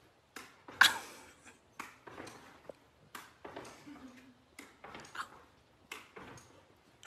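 A dog jumping repeatedly indoors, its paws knocking and scuffing on the floor: a string of short, irregular knocks, the loudest about a second in.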